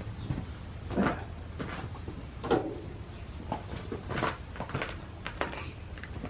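Scattered light clicks and knocks from hands handling a plastic turn signal lamp and its wiring connectors, the two strongest about a second in and two and a half seconds in.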